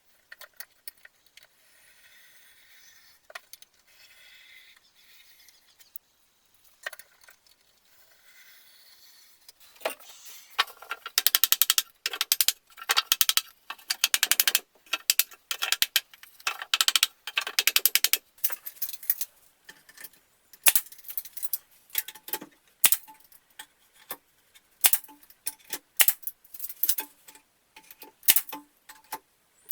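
Small metal objects clicking and clinking: a few faint clicks at first, then about ten seconds in a dense rapid rattling that runs for several seconds, followed by scattered sharp clicks in small clusters.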